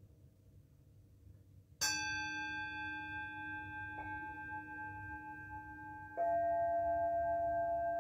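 A metal singing bowl is struck with a mallet about two seconds in and rings on with several long overtones. A second bowl with a different note is struck about six seconds in, and the two ring together.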